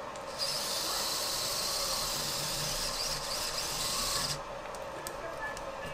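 Small electric precision screwdriver running steadily for about four seconds, driving a camera-mount screw tight on an FPV quad's camera cage, then stopping.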